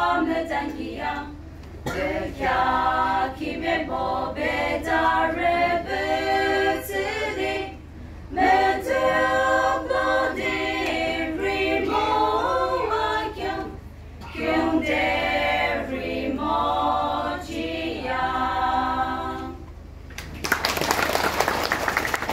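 Women's choir singing unaccompanied in several phrases with short breaks. Near the end the singing stops and applause breaks out.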